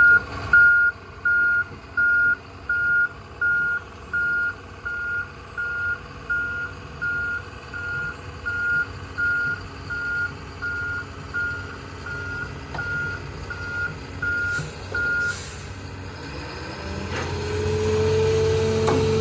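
A heavy vehicle's backup alarm beeping steadily on one tone, about one and a half beeps a second. The beeps grow fainter and stop about fifteen seconds in. Near the end an engine grows louder.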